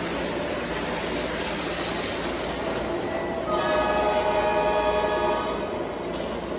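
O-gauge model trains running on three-rail track with a steady rolling noise from the wheels; about halfway through, a model locomotive's sound-system horn blows once for about two seconds.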